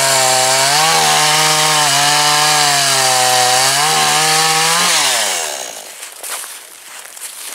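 Chainsaw cutting through a log at full throttle, its pitch dipping briefly twice under load, then falling away about five seconds in. After that, a few footsteps on thin snow over leaf litter.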